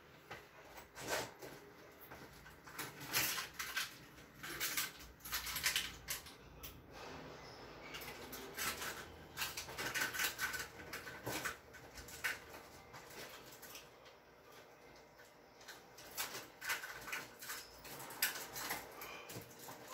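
Irregular light knocks and clatter of kitchen items being handled and set down on a counter, with brief rustles in between.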